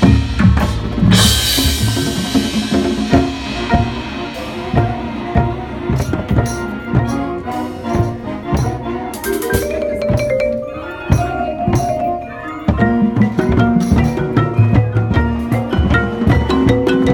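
Marching band front ensemble playing: marimbas struck with four mallets in quick runs of notes, close up. Deep drum hits run underneath, with a cymbal crash near the start.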